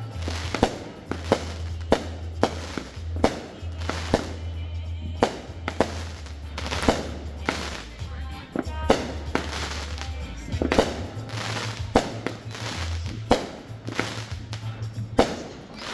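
Aerial fireworks going off in an irregular series of sharp bangs, about one or two a second, some with a ringing echo after them. Music with a low bass line plays underneath.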